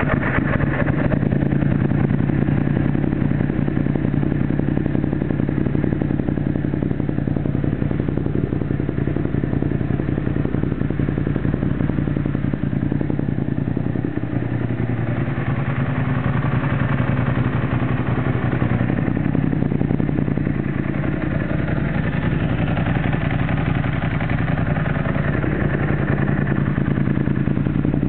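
2007 Ducati Monster S4Rs V-twin running through a new HPE aftermarket exhaust, idling steadily just after start-up.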